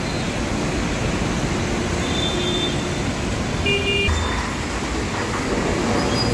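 Congested street traffic: vehicle engines running in a steady wash of road noise, with short horn toots about two and four seconds in.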